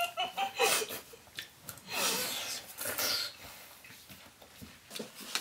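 Two people eating juicy watermelon fast, slurping and chewing the wet flesh with noisy breaths, and a short vocal sound in the first second.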